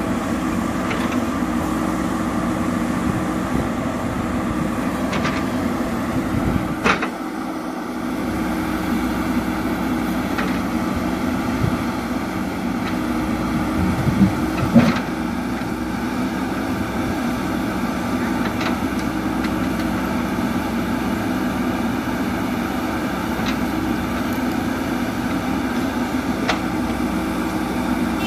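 JCB 3DX Super backhoe loader's diesel engine running steadily under work, with a few sharp metallic knocks about a quarter and halfway through.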